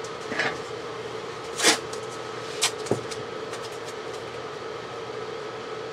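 Blue painter's tape being pulled off and handled: a few short rustling, tearing noises, the loudest a sharp rasp a little under two seconds in, over a steady background hum.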